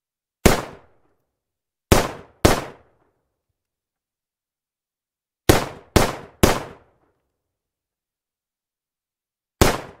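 Seven shots from a CZ 75 semi-automatic 9 mm pistol: one, a quick pair, a quick run of three, then one more near the end. Each is a sharp crack with a short ring and no long echo tail.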